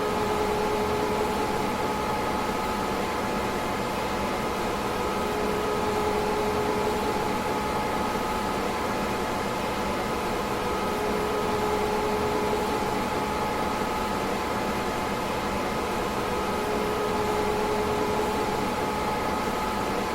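PDP-11/44 minicomputer running steadily: an even whirring noise with a constant two-note whine, and a lower hum that swells in and fades out about every five to six seconds.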